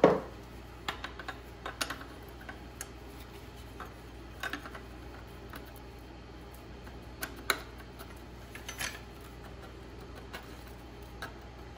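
Irregular light metallic clicks and taps as a steel fuel line's flared fitting nut is handled and worked by hand at the fuel pump inlet, trying to get it started on its thread. A steady low hum runs underneath.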